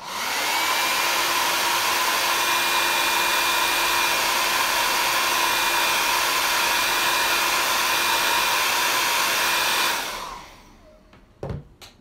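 Hand-held hair dryer blowing steadily, a loud even hiss with a faint hum in it, switched off about ten seconds in and winding down. A couple of light knocks follow near the end.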